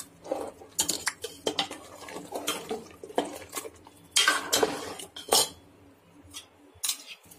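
Metal ladle stirring thin nihari gravy in a large metal pot as a flour, yogurt and onion paste is stirred in, knocking and scraping against the pot in irregular clinks, the loudest about four to five seconds in.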